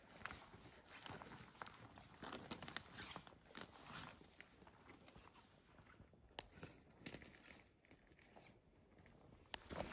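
Faint, irregular footsteps crunching and rustling through brush.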